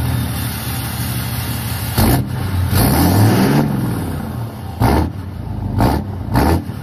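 A 6.7 L Cummins turbo-diesel inline-six in a 2014 Dodge dually running through a 5-inch stainless exhaust with the emissions equipment deleted. It is revved once, rising and falling in pitch about three seconds in. Several short thumps sound over the engine.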